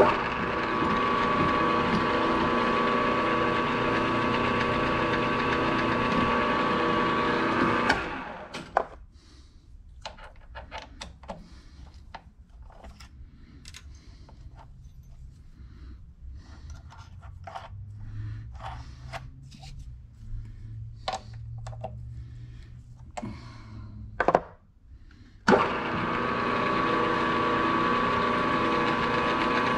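Milling machine spindle running steadily with a whine, then switched off about eight seconds in. After that come scattered light clicks and taps of chips being brushed off an aluminium plate and tools being handled. The spindle starts up again about 25 seconds in.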